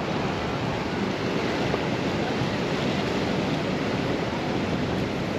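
Steady rushing noise of wind and ocean water under the pier, with no distinct events.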